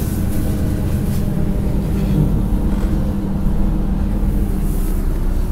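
LiAZ-6213.22 articulated city bus heard from inside the passenger cabin while it drives: a steady low rumble of engine and road noise with an even drone underneath, and no sudden events.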